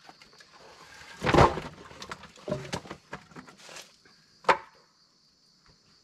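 Split firewood pieces knocking and clattering against each other as they are handled and stacked, a few separate wooden knocks with the loudest about a second and a half in. Crickets chirp steadily underneath.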